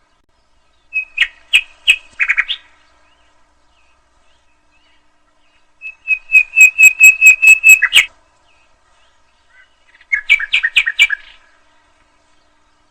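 Nightingale singing in three short phrases of quickly repeated notes, about a second in, around six seconds in and about ten seconds in, with silent pauses between them. The middle phrase is a run of about five sharp notes a second.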